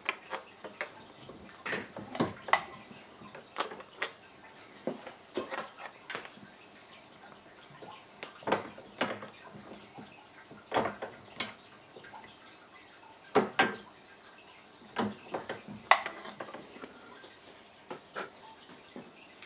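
Steel bench vise being worked to press a ball bearing into a 3D-printed plastic block: a string of irregular metallic clicks and clinks, one or two a second.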